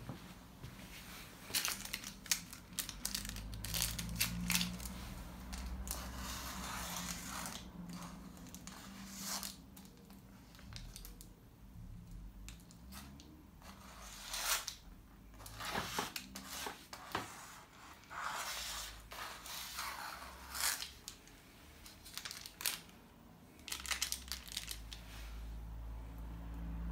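Aerosol spray-paint can hissing in irregular bursts as its nozzle is pressed: several short sharp spurts and a few longer sprays of a second or two.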